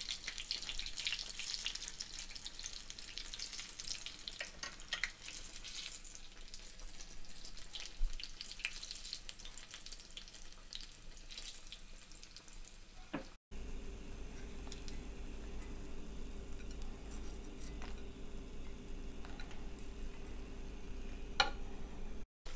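Gram-flour-battered potato slices (alooni) deep-frying in hot oil, a dense crackling sizzle as the batter puffs up and browns. After a brief break about halfway, the sizzle is softer over a steady low hum.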